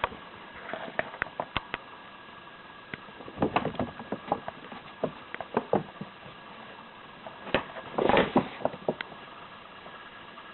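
Irregular light taps, clicks and scuffling, with two busier flurries about three and a half and eight seconds in, over a faint steady hum.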